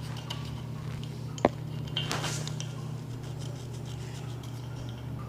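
A pencil clinking and scraping against a small clay dish of water, with one sharp click about a second and a half in and a short scrape near two seconds, over a steady low hum.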